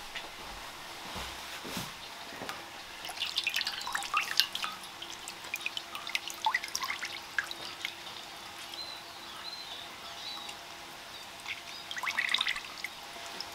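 Water dripping and splashing back into an enamel basin as a soaked beef fillet is lifted out of it, in three spells of drips and splashes.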